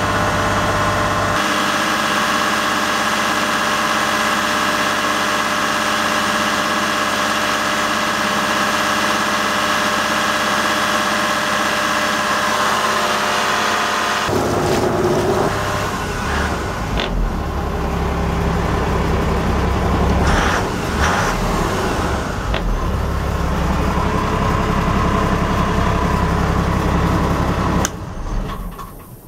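Yamaha FC27's inboard engine running steadily, the tachometer near 2,000 rpm. About halfway through it is heard close up at the engine itself, louder and deeper, and near the end it is switched off with the key and dies away.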